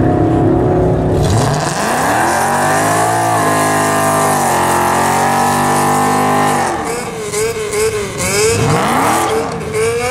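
Car engine revving hard during a burnout. The revs climb over the first couple of seconds and are held high, then drop about seven seconds in, and the engine blips up and down over a wavering tyre squeal.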